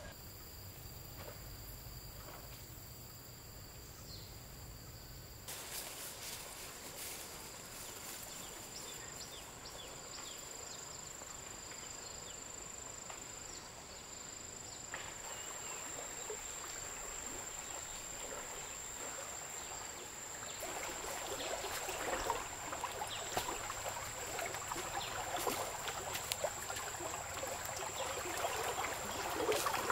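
Tropical forest ambience: insects keep up a steady high-pitched drone throughout. In the last third, a louder crackling rustle comes in, footsteps pushing through grass and brush.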